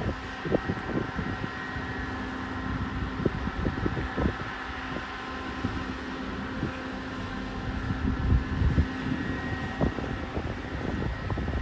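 Diesel engine of a yellow Network Rail on-track maintenance machine running with a steady hum, while wind buffets the microphone in gusts.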